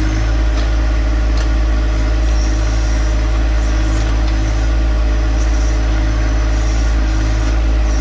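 John Deere 1025R compact tractor's three-cylinder diesel engine running at a steady speed while its backhoe digs a trench.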